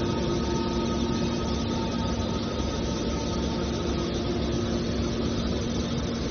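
Hydraulic scrap metal baler running: a steady machine hum with several constant tones over a rushing noise, unchanging throughout.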